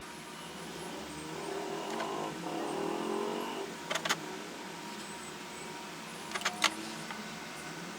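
A soft whirring swells for a couple of seconds, then come two quick clusters of sharp clicks, about four and about six and a half seconds in.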